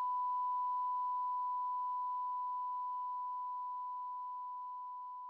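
A single steady electronic tone at one pitch, like a test-tone beep, held and slowly fading.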